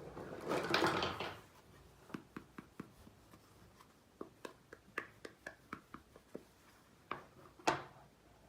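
Pieces of a miniature toy kitchen set being handled: a brief rustle or slide, then a run of light clicks and taps as small parts are set down and fitted, and two sharper clicks near the end.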